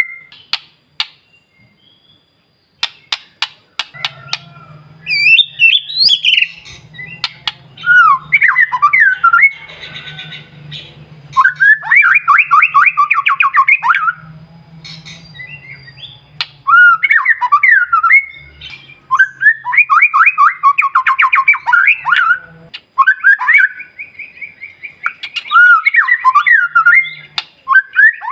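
White-rumped shama (murai batu) singing non-stop: loud whistled phrases of sliding notes and rapid-fire trills, broken by short pauses, with a few sharp clicks near the start.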